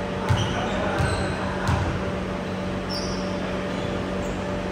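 A volleyball being hit three times in quick succession, about two-thirds of a second apart, over a steady hum and faint voices.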